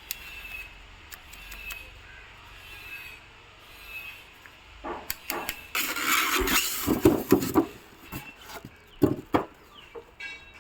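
Packaging being handled while unboxing a welding machine: scattered knocks and clicks, with a scraping, rustling stretch of a couple of seconds about halfway through.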